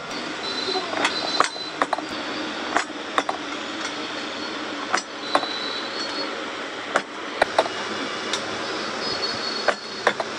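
Hand-lever bench shear cutting lengths of steel speedometer-cable wire: about a dozen sharp metallic snaps and clinks at irregular intervals, some with a short high ring, over a steady hiss.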